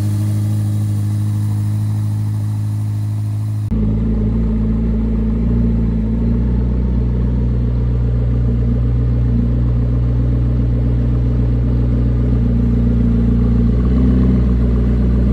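Ferrari SF90's twin-turbo V8 idling steadily, then an abrupt cut about four seconds in to a McLaren P1's twin-turbo V8 idling with a deeper, lower note.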